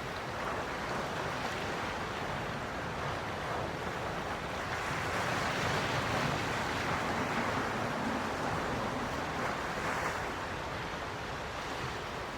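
Gentle sea waves washing onto the shore, a steady wash that swells to a louder rush about halfway through and a smaller one near the end.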